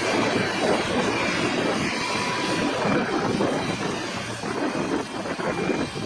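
John Deere T670i Hillmaster combine harvester running at working load while cutting oilseed rape: a steady engine and threshing-machinery noise with a broad rushing hiss.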